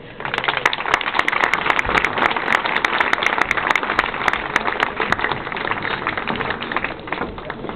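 Audience applauding. It starts suddenly with dense, many-handed clapping, then thins and fades over the last few seconds.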